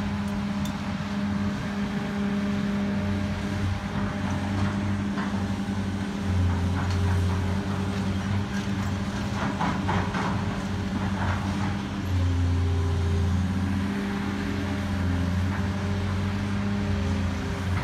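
Caterpillar hydraulic excavator's diesel engine running steadily, its note swelling under load twice, with scattered crunching and clatter of brick and roof debris as the excavator tears into the building.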